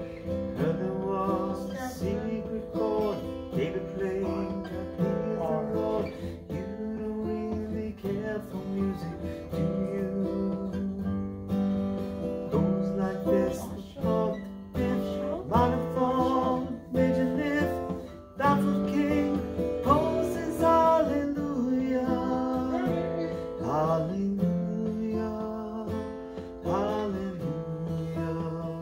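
A man singing while strumming chords on an acoustic guitar.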